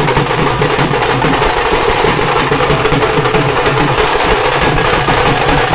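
A group of dhol drums beaten with sticks, playing a fast, dense beat together, with brass cymbals clashing over it.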